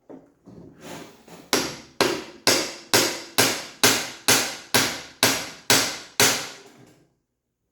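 Hammer blows: a few light taps, then a steady run of about eleven hard strikes, roughly two a second, each ringing briefly, driving at a part lodged deep in the Jeep soft-top door.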